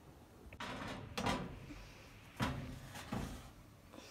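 A metal baking tray being slid into an oven and set on its wire rack: four short knocks and scrapes of metal on metal.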